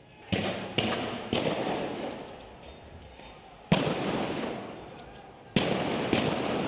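Six gunshots from riot police firing on protesters: three in quick succession in the first second and a half, then three more spaced through the rest. Each shot echoes and dies away over about a second.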